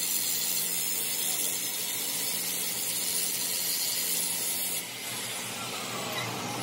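Abrasive grinding disc grinding down a weld on a steel truck countershaft: a steady, high hiss of disc on metal that stops about five seconds in, leaving a quieter machine hum.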